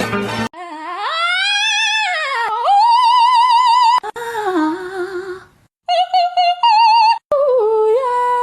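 A single voice singing held notes with a wide vibrato. It opens with a slow slide up and back down in pitch, and several short pauses break it up.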